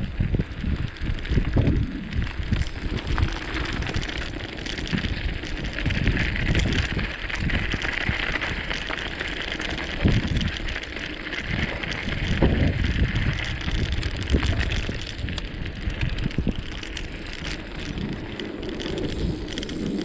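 Wind buffeting the microphone in uneven gusts, over a steady hiss.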